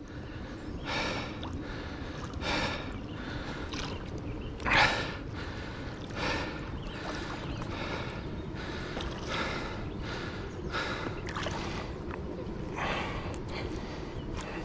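A man breathing hard, with short snorting, gasping breaths about once a second, the loudest about five seconds in: the strain of fighting a big catfish on the rod.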